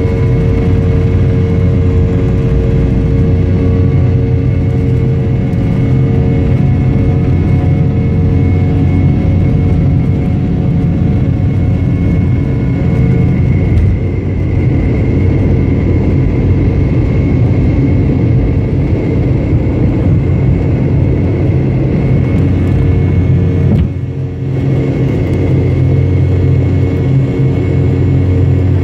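Cabin sound of a Boeing 717's two rear-mounted Rolls-Royce BR715 turbofans at takeoff power: a loud, steady hum with a held whine through the takeoff roll, liftoff and initial climb. The loudness dips briefly near the end.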